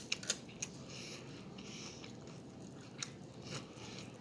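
Close-miked chewing and biting of food: moist mouth sounds with a few sharp clicks, near the start and again about three seconds in.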